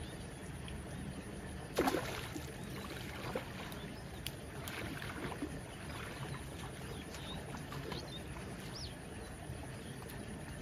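A hooked fish splashing and thrashing at the surface of a shallow, flowing canal: one loud splash about two seconds in, then a run of smaller splashes, over the steady sound of running water.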